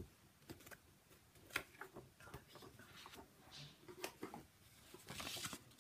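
Faint handling of a wooden picture frame: scattered light clicks and taps, with a short rustle near the end.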